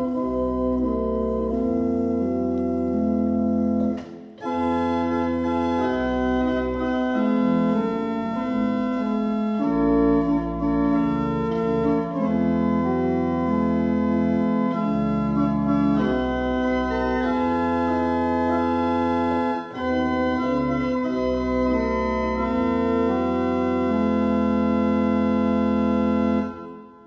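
Church organ playing a slow interlude of held chords that change every second or so, with a short break about four seconds in, stopping just before the end.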